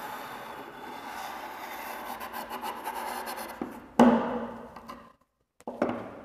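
Chalk scraping steadily on a chalkboard as a circle is drawn, then a sharp knock about four seconds in and a shorter one near the end.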